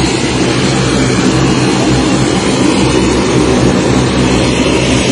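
Twin-engine turboprop airliner's engines and propellers running: a loud, steady drone with an even hum.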